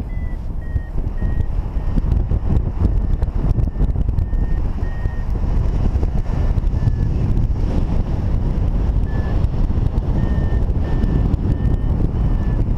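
Paragliding variometer beeping in short electronic tones, the pitch shifting a little from beep to beep, with a pause in the middle before the beeps resume: the climb signal of the glider rising in lift. Heavy wind rush on the microphone is the loudest sound.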